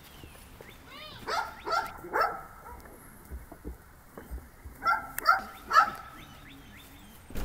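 A dog barking: two short runs of about three sharp barks each, the second run a little past the middle.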